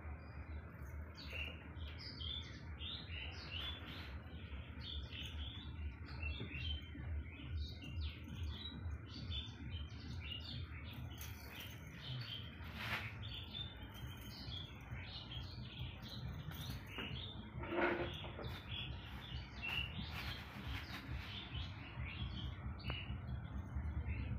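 Small birds chirping busily, many short high chirps close together throughout, over a low steady background rumble, with one brief louder sound about three quarters of the way through.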